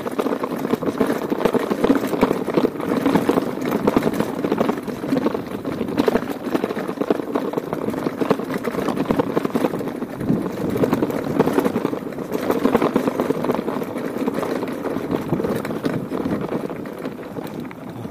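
Mountain bike rattling over a rough stone track, a steady dense clatter of small jolts and knocks.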